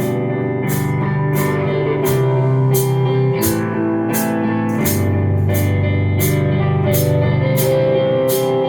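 Rock band playing an instrumental intro: guitar and bass holding chords. The drum kit comes in at the start with a cymbal struck in a steady beat, about every two-thirds of a second.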